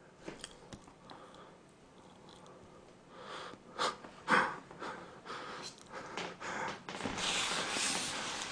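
Faint sounds of a knife cutting into a dome-shaped cake, a scatter of small clicks and scrapes that grow busier after a few seconds. A steady breathy hiss comes in near the end.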